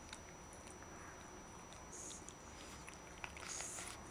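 A dog licking another dog's face: faint, wet tongue smacks, a few about two seconds in and again near the end.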